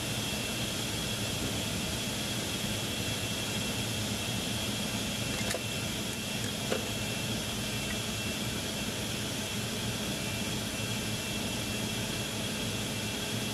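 Steady drone of running air-conditioning plant machinery, with a low hum and a thin high whine over it. Two faint clicks about five and a half and seven seconds in.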